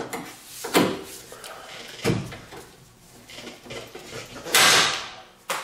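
Plastic push-pin fasteners being pried out of a plastic radiator shield with a pry tool: a few separate clicks and knocks, then a longer scraping crackle near the end, followed by a sharp snap.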